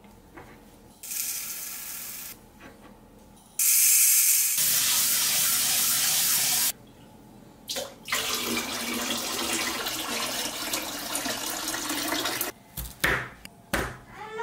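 Kitchen faucet run in three separate goes, water rushing and splashing into the sink, the middle run the loudest. A few sharp knocks follow near the end.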